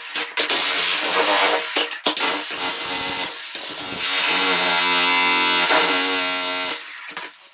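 Electric demolition hammer chiselling into old, hard concrete, hammering in a loud buzzing run with short breaks about two and three and a half seconds in, then stopping near the end.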